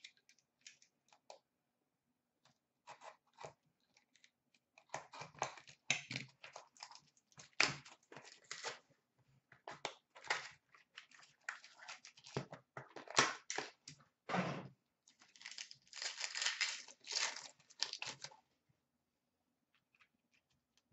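Wrapping of a hockey card box and its packs being torn open and crinkled by hand, in irregular crackly bursts with small clicks of handling, stopping about two seconds before the end.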